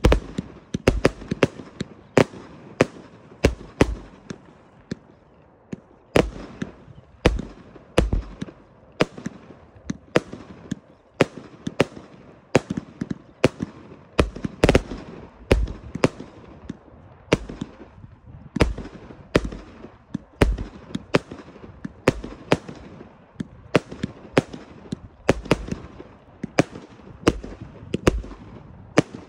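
Top G 293-shot firework cake firing shot after shot: a steady run of sharp bangs, about one to two a second, with no pause.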